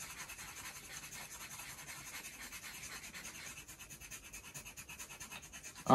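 Knife blade scraping the coating off a scratch-off card in rapid, even back-and-forth strokes.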